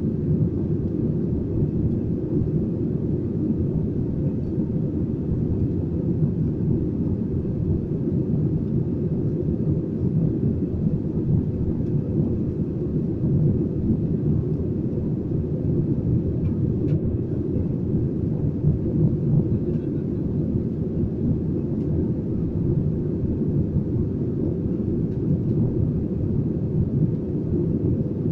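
Airbus A320 cabin noise in flight, heard from a window seat over the wing: a steady, even low rumble of engines and airflow.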